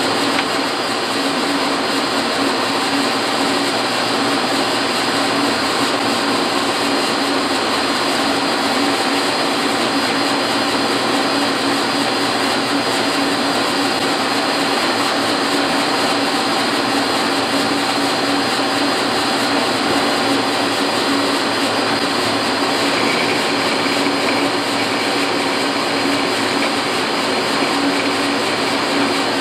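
1956 Axelson metal lathe running steadily under power, its motor and gearing giving a loud, even drone with a low hum.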